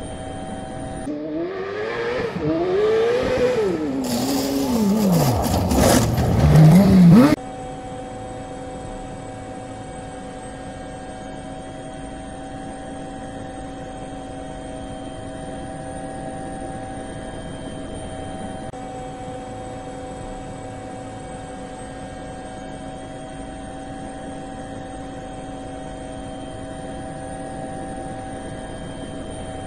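Steady whine of a DJI Phantom quadcopter's motors and propellers. About a second in it gives way to a louder engine revving up and down for roughly six seconds, which cuts off abruptly before the drone whine returns.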